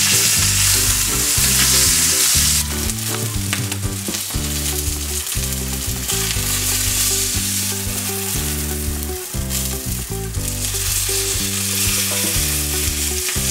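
Beef steaks sizzling as they sear in a hot stainless-steel frying pan, the sizzle loudest for the first two or three seconds and then a little quieter. Background music with a steady low bass line plays underneath.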